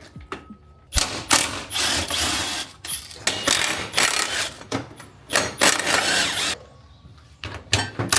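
Ratchet turning fasteners in a run of short bursts, with a pause near the end before it starts again.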